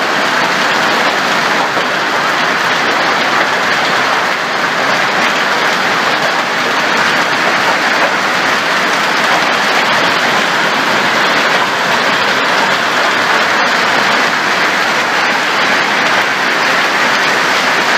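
Hail and heavy rain pelting down in a loud, steady, unbroken hiss of countless stones and drops striking the ground.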